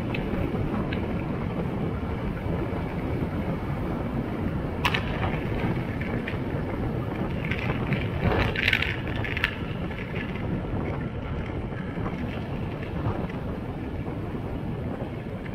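Wind buffeting the microphone and a steady road rumble from riding along a winding road, with no clear engine note. A sharp tick about five seconds in and a brief run of small rattling ticks a few seconds later.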